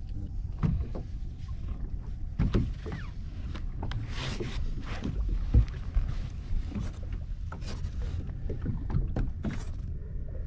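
Steady low wind-and-water rumble around a small boat at anchor, with scattered knocks, clatters and rustles as the anchor line and its ring are handled over the bow rail.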